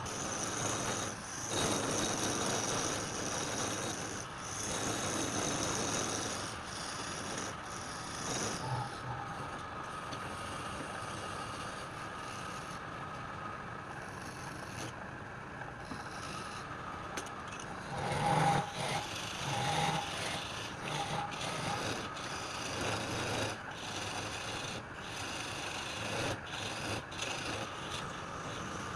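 Wood lathe running with a turning tool cutting into the spinning wood, the scraping coming in uneven stretches of a second or two over a steady motor hum.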